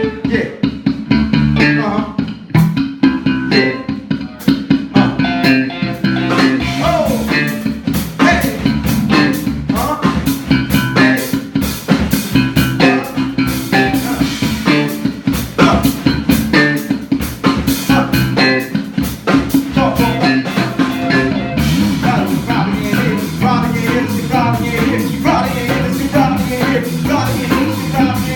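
Live band playing a bluesy number: guitar over bass guitar and drum kit. The cymbals come in thicker about three quarters of the way through.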